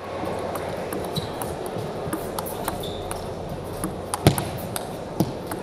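Sharp, scattered clicks of a table tennis ball bouncing on the table and striking the bat, the loudest two about a second apart near the end, over a steady murmur of the arena crowd.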